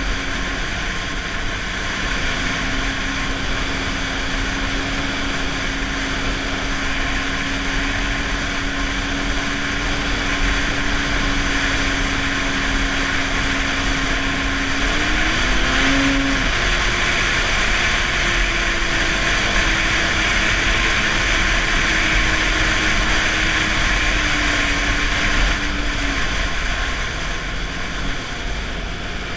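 Snowmobile engine running at a steady trail speed over a constant rushing noise; the engine note rises about halfway through as the throttle opens, then eases off and fades near the end.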